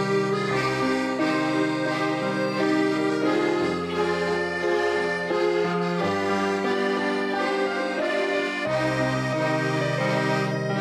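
Youth orchestra of violins, flutes, melodicas and accordions playing together, with held accordion chords and bass notes that change every few seconds.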